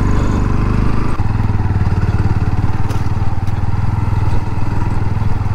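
Single-cylinder Bajaj Pulsar 160 motorcycle engine running steadily while being ridden, heard from the rider's seat; the engine note shifts slightly about a second in.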